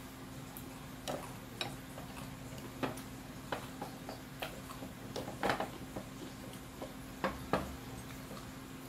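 Metal fork and spoon clinking and scraping against a plate while eating: scattered light clicks, the loudest about five and a half seconds in and two more shortly after seven seconds, over a steady low hum.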